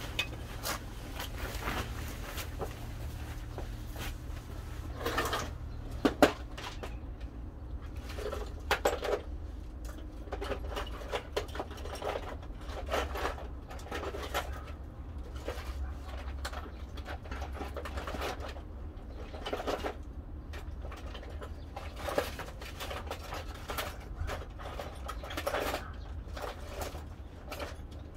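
Scattered clicks and knocks of something being handled, over a low steady hum.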